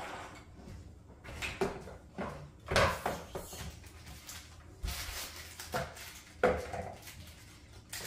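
Hard plastic parts of a toy ride-on ATV knocking and clattering as they are handled and fitted onto the axle, in an irregular string of clicks and knocks, the loudest about three seconds in and again just past six seconds.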